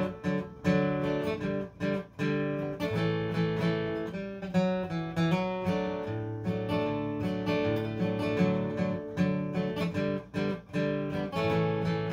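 Steel-string acoustic guitar played solo: picked notes and strums over moving bass notes, an instrumental break in a country-style song.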